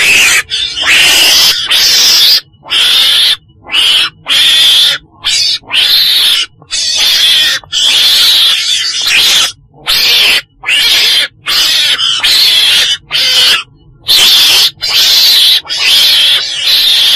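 A weasel (Mustela) calling over and over: a fast run of short, loud, high-pitched rasping calls, about one to two a second, with brief gaps between them.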